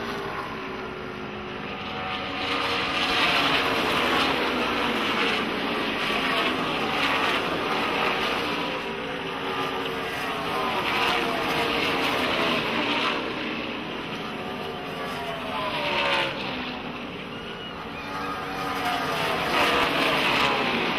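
NASCAR stock cars' V8 engines racing past at speed, several at once. Each swells and then drops in pitch as it goes by.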